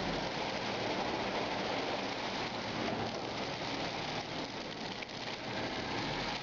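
Gravity-fed pinot noir must, destemmed grape berries and juice, pouring from a stainless-steel chute into a stainless-steel fermentation tank, with a steady, even pattering and splashing noise.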